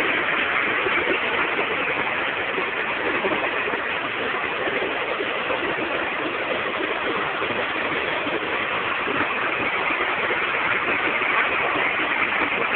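A waterfall cascading over rock close to the microphone: a steady, loud rush of water.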